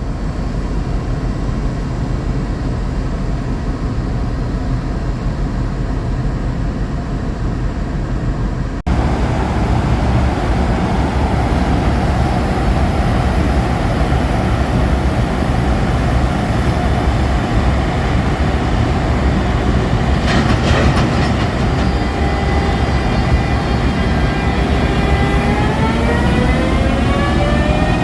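JR Freight EF210 DC electric locomotive running with a steady rumble that gets louder about nine seconds in. There is a brief clatter about twenty seconds in. In the last few seconds its motor inverter whine rises in pitch as it accelerates.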